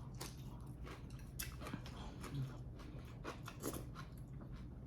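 A person chewing and eating close to the microphone: soft, irregular little clicks and wet mouth noises.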